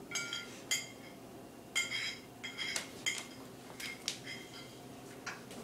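Irregular light clinks, about nine in a few seconds, each ringing briefly at the same few bright pitches.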